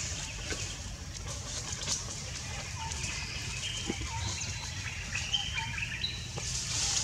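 Birds chirping: short, high, even-pitched notes scattered through, over a steady low rumble.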